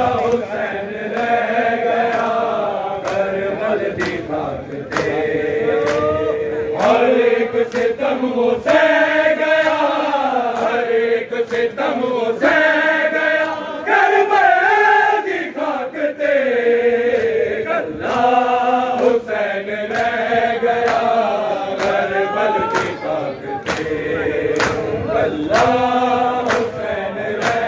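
A group of men chanting a Muharram noha (mourning lament) in unison, led by reciters, with a sharp slap about once a second that marks the beat, typical of matam chest-beating.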